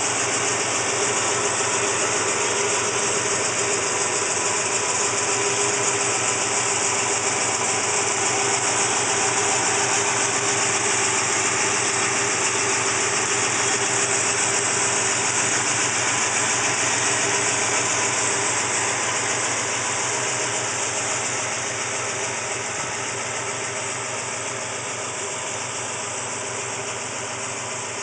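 Freshly rebuilt 383 Magnum big-block V8 of a 1969 Plymouth Road Runner idling steadily, heard from beside the open engine bay; it gets a little quieter over the last third.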